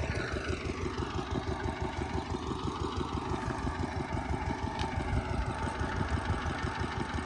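An 8 hp single-cylinder diesel engine driving an irrigation water pump, running steadily with a rapid, even low thudding of its firing strokes.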